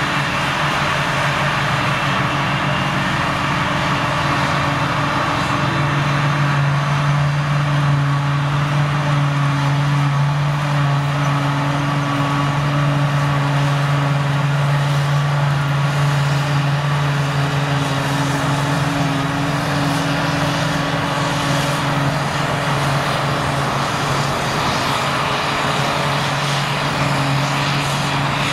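Claas Jaguar self-propelled forage harvester chopping grass under load, with the tractor towing the silage wagon running alongside. The engines make a steady drone that grows a little louder after about six seconds.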